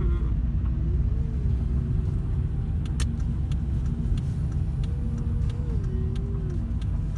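Car engine and tyre noise heard from inside the cabin while driving, a steady low rumble. A faint tone rides on it, rising and easing back twice. A light click comes about three seconds in.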